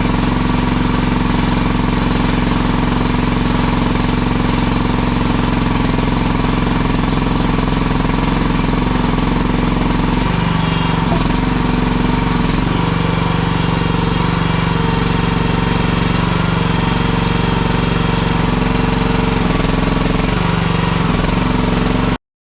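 Small gas engine of a Chinese compact machine running hard while its bucket clears brush and ivy. Its note drops and wavers from about ten seconds in, and the sound stops abruptly near the end.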